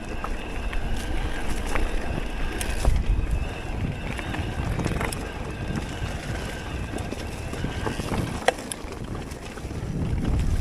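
Focus Jam2 e-mountain bike riding down a dirt trail: the tyres rumble over the ground and wind buffets the action-camera microphone, with scattered sharp clicks and rattles from the bike. The sharpest click comes about eight and a half seconds in.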